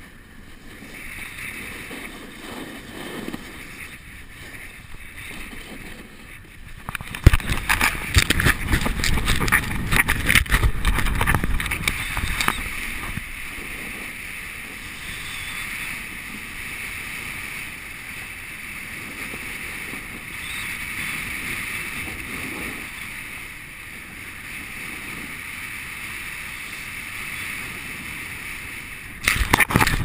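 Skis sliding and scraping over packed snow at speed, with air rushing over the camera's microphone: an even hiss, broken by several seconds of loud buffeting and clatter about seven seconds in and a short loud burst near the end.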